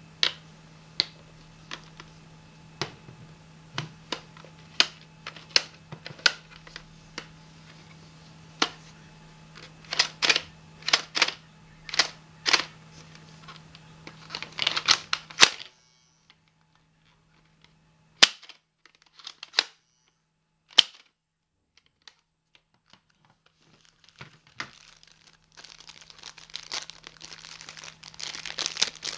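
Sharp plastic clicks from a Mega Bloks toy dart blaster's mechanism being worked by hand, irregular and at times in quick runs, through the first half; then a few single clicks, and near the end the plastic packet of foam darts crinkling as it is handled.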